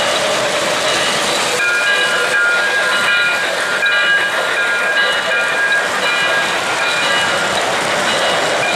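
O-gauge model trains running on three-rail track, giving a steady rushing hiss with short high tones that come and go.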